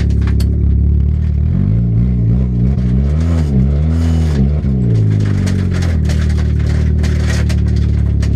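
Engine of a stripped-out 2002 Oldsmobile Alero demolition derby car, heard from inside the gutted cabin while driving slowly. The revs rise and fall several times from about two to five seconds in, then hold steady, with scattered clicks and knocks from the bare interior.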